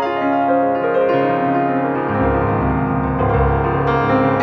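Background piano music with held, overlapping notes. Deeper bass notes join about two seconds in.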